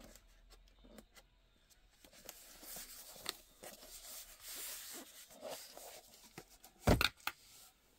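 Hands handling a boxed Hot Wheels set: soft rustling and scraping of the packaging with small clicks, then a couple of sharp knocks about seven seconds in.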